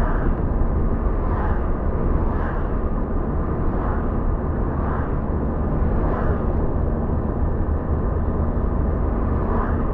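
Steady road noise of a car driving at speed, heard from inside the cabin: a low rumble of engine and tyres on asphalt.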